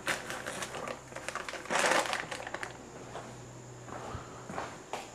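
Faint irregular crinkling and rustling with scattered small clicks, loudest about two seconds in: something that crinkles, like a bag or wrapper, being handled.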